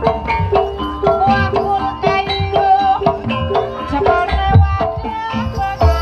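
Javanese gamelan accompaniment for an ebeg horse dance: rapid hand-drum strokes with short ringing pitched tones from struck instruments, and deep drum thuds twice in the second half.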